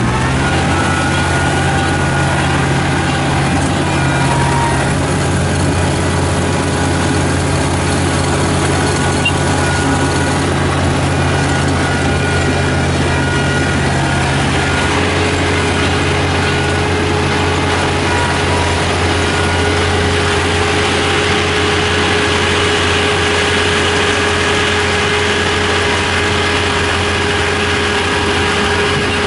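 Kubota ER447 combine harvester's diesel engine and machinery running steadily; the low hum changes pitch about halfway through.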